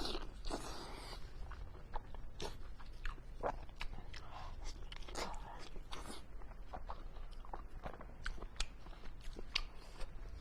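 Close-miked eating sounds: wet chewing and lip-smacking clicks, irregular and repeated, from someone eating fatty pork belly.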